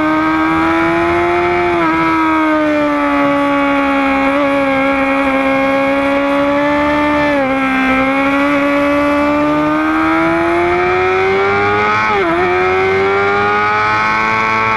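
High-revving sportbike engine heard onboard at speed on a race track, a steady high-pitched whine held high in the rev range. The pitch sags slightly through the long corner, breaks briefly about two, seven and twelve seconds in, then climbs again near the end.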